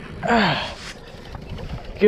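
A man's strained, breathy groan, falling in pitch, about a quarter second in, from the effort of heaving on a heavy fish with a rod and reel. A steady low rumble of wind and water runs underneath.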